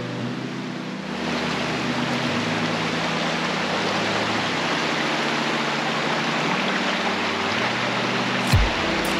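Rain-swollen stream rushing over stones, coming in about a second in, over soft background music of low held notes. A single thump with a few clicks comes near the end.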